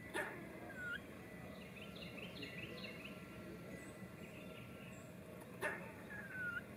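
Eastern gray squirrel scolding an intruder: two sharp barks about five seconds apart, each trailed by a short squeal.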